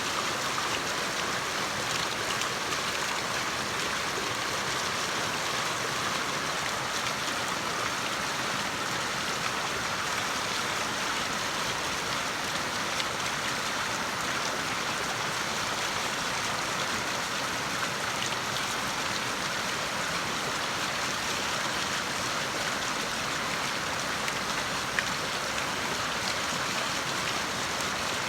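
Water rushing and splashing at a water wheel, a steady hiss with faint drips and ticks, and one sharper tap about 25 seconds in.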